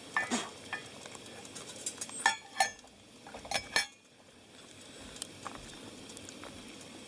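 Metal utensil clinking and scraping against a camp cooking pot while the food is stirred, in several short clusters of clinks during the first four seconds.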